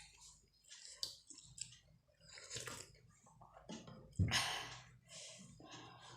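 Close-miked chewing and wet mouth clicks of someone eating chicken momos, coming in short irregular bursts, with one louder, sudden mouth sound about four seconds in.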